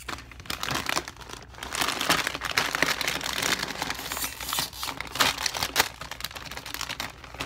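A thin plastic bag crinkling and rustling as it is handled and rummaged through.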